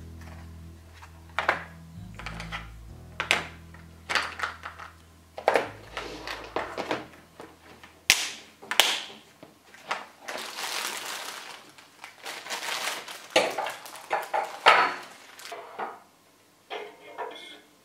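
Handling noises on a tabletop: a string of clicks and knocks as a metal watercolour paint tin and a plastic box are picked up, opened and set down, with a couple of seconds of scraping noise about ten seconds in.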